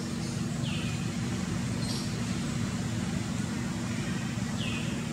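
Steady low background rumble with a constant hum. Two short high chirps, each falling in pitch, come about a second in and near the end.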